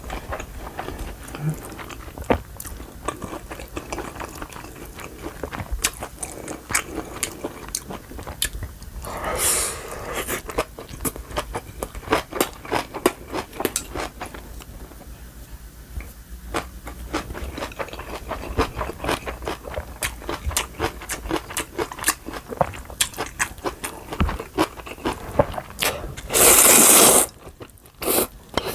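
Close-miked eating: crisp crunching bites and wet chewing of kimchi, ramyeon and rice, with many quick clicks throughout. A short, loud rush of noise comes near the end.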